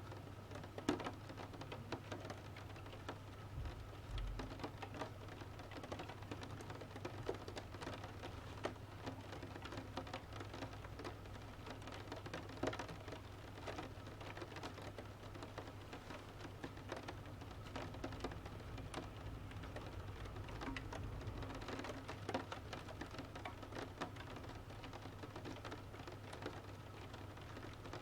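Rain pattering on a window, mixed with the irregular crackle and pops of a wood fire burning in a stove, over a steady low hum.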